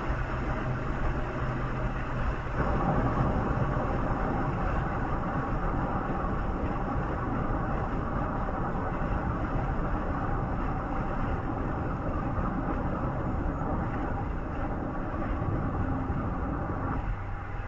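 Steady running noise of a vehicle travelling on the move, a continuous rumble with a low hum whose pitch shifts about two and a half seconds in and again near the end.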